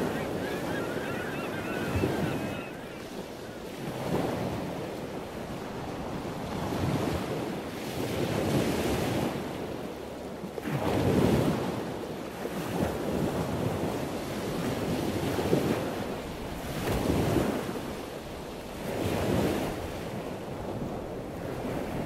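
Atlantic Ocean surf breaking on the beach, mixed with wind buffeting the phone's microphone. The sound rises and falls every couple of seconds.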